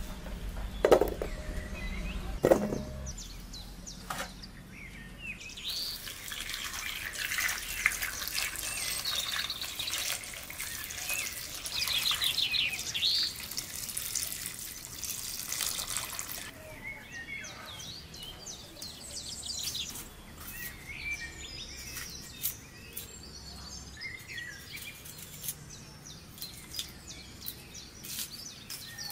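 Small birds chirping and trilling throughout, with a few sharp knocks in the first three seconds. The birdsong is busiest in the middle, over a soft hiss.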